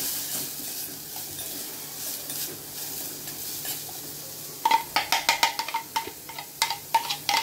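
Ginger and garlic sizzling in ghee in a metal pan. About two-thirds of the way in, a spoon starts knocking and scraping against the pan in quick, repeated clinks with a ringing tone as the mixture is stirred.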